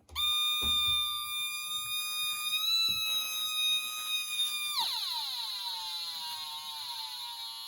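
Small loudspeaker driven by a 555 timer oscillator in a light-activated alarm circuit: a steady, high-pitched electronic tone starts as the circuit is powered up. About five seconds in, the pitch drops sharply to a lower, buzzier tone as the photocell that sets the frequency is shaded from the light. Light still leaking in keeps it sounding.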